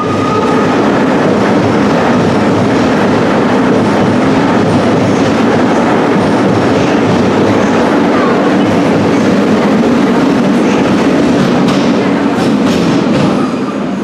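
Rome Metro Line A train pulling out of the station and running past along the platform: a steady, loud rumble of wheels on rail, with a few clicks near the end. The rumble drops away as the train enters the tunnel.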